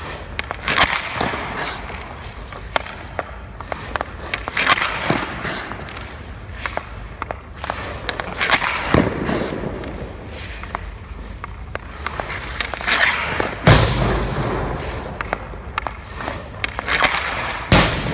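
Ice skates scraping and carving on rink ice in repeated swells, with sharp clicks of a hockey stick on the puck and a heavy thud about three-quarters of the way through.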